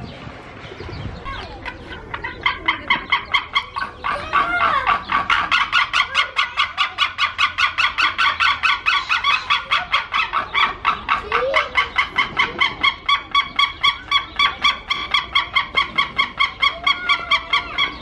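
Eagles calling: a long, rapid run of high, evenly repeated notes, about five a second. It starts about two seconds in and goes on without a break.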